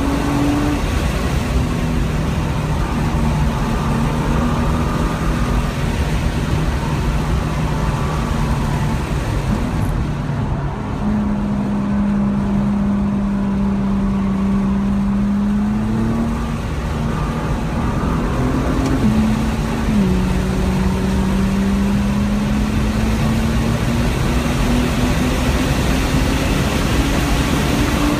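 Nissan GT-R's twin-turbo V6 heard from inside the cabin over heavy tyre and wind noise, first easing off for a slow corner and then pulling hard. Its note climbs, drops at an upshift about twenty seconds in, and climbs again as the car accelerates past 120 mph.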